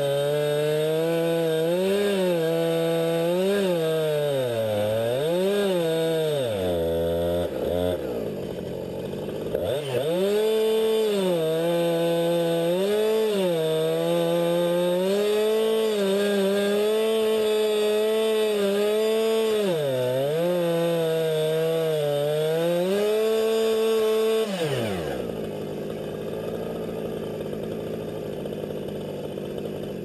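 Chainsaw engine running and being revved up and down, its pitch rising and falling every second or two, dropping low for a moment about a third of the way in. Near the end the engine note slides down and dies away.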